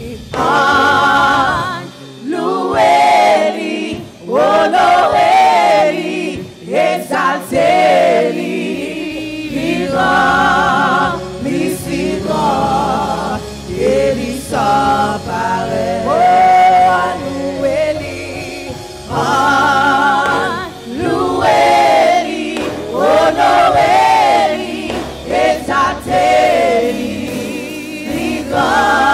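Gospel worship song sung in Haitian Creole by a woman and a man on microphones, with other voices singing along. A low accompaniment joins about nine seconds in.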